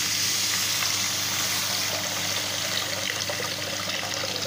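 A steady stream of water pouring into a clay cooking pot, splashing onto the fried spice paste and filling the pot.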